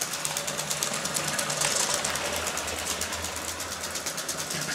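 Lego 7730 train's 12-volt motor locomotive running along plastic track: a steady motor whir with rapid, even clicking from the wheels and gears.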